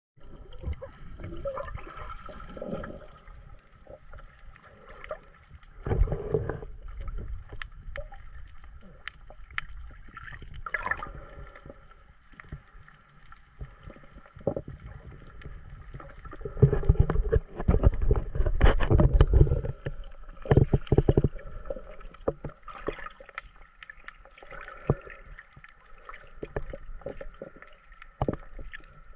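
Water heard through an underwater camera: muffled gurgling and bubbling with scattered clicks, and a louder stretch of rushing, splashing water a little past halfway through.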